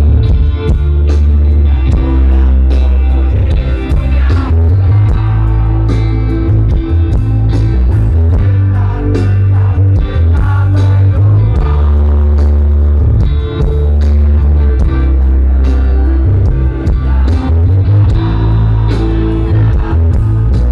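Rock band playing live and loud, with heavy bass, sustained guitar notes and steady drum hits.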